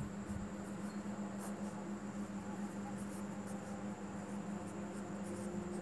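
Pen scratching on paper in short strokes as words are written, faint, over a steady low electrical hum.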